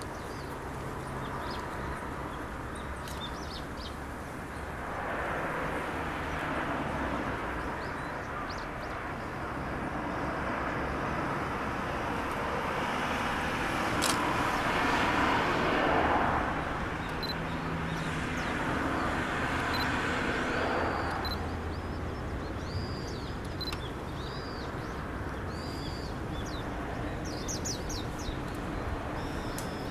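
Road traffic passing on the road below: the noise of vehicles swells and fades, loudest around the middle. Small birds chirp over it, more often in the second half.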